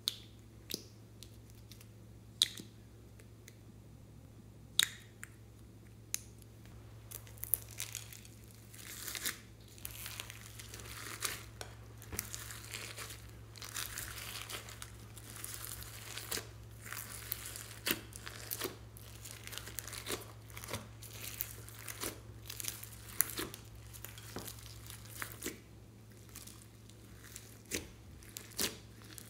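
Hands kneading and pressing glossy slime mixed with foam beads and floam. There are a few sharp clicks in the first few seconds, then about twenty seconds of dense crackling as the beads are squeezed through the slime, thinning to scattered clicks near the end, over a faint steady low hum.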